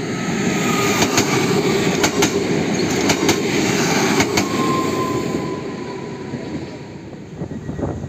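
Diesel locomotive rolling past close by: a loud rumble with pairs of wheel clicks over the rail joints about once a second, four times, and a faint wheel squeal before the rumble fades about two-thirds of the way through.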